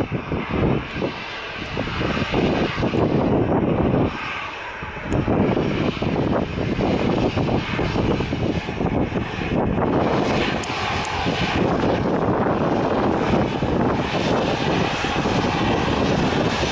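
Aircraft engine noise mixed with heavy wind buffeting on the microphone, the gusts making the sound rise and fall unevenly; the engine sound grows fuller and steadier about ten seconds in.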